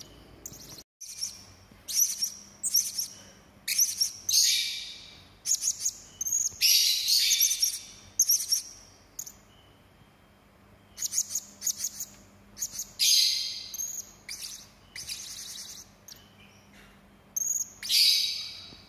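Hanging parrot (serindit) giving sharp, harsh, high-pitched calls in quick bursts, with quiet gaps of a second or two between the bursts.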